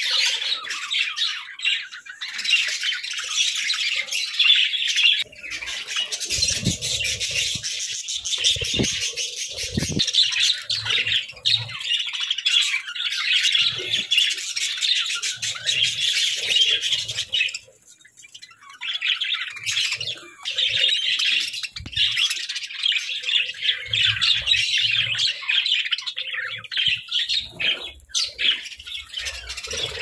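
A flock of budgerigars chattering continuously in fast, high twittering and chirps, with a brief lull a little past halfway.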